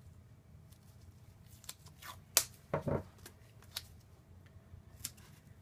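Small handling sounds of blue painter's tape being torn and pressed onto a wooden dice tray, with the tape roll set down on the table: a few scattered short clicks and rustles, the sharpest about two and a half seconds in.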